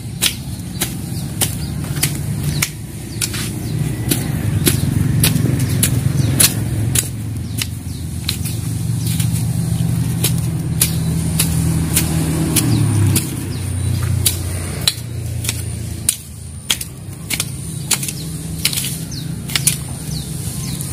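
A tajak, a long-handled L-shaped iron weeding blade, chopping and scraping through short grass and soil in repeated strokes, each a sharp crisp hit, about two a second. A low steady engine hum runs underneath, strongest through the middle.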